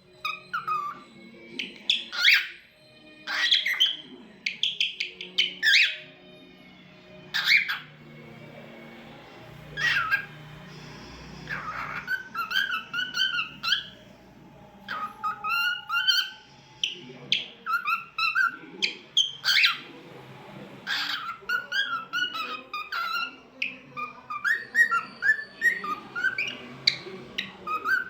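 Cockatiel whistling and chirping in a long string of short notes, with loud sharp squawks among them.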